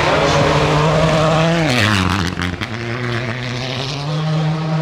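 Rally car's turbocharged four-cylinder World Rally Car engine at high revs on a gravel stage. About two seconds in the engine note drops sharply, with a burst of sharp crackles and pops, then it holds lower and climbs again as the car pulls away.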